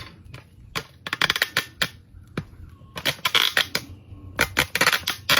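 Crinkling and clicking of wrapping material being handled around a wrapped cylinder head, in three short flurries.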